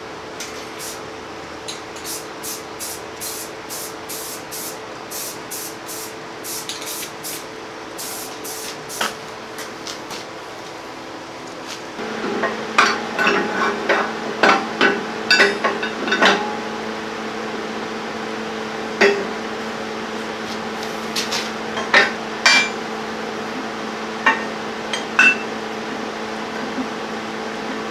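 Steel backhoe thumb and its pins knocking and clanking as they are handled and fitted, over a steady hum. The first ten seconds hold a run of quick, evenly spaced ticks; loud, separate clanks follow from about twelve seconds in.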